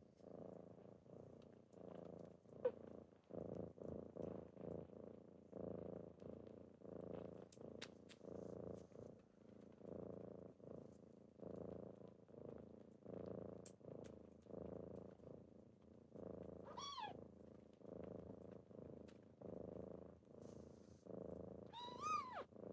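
Kitten purring steadily and faintly, the purr pulsing in a regular rhythm with its breathing. Two short high mews break in, about two-thirds of the way through and again near the end.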